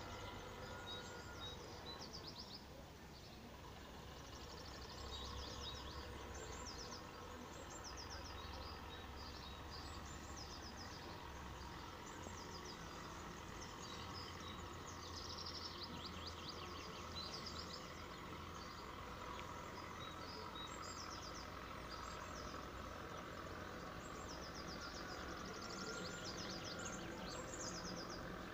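Faint birdsong: small birds giving repeated quick, high trills every few seconds, over a steady low background hum.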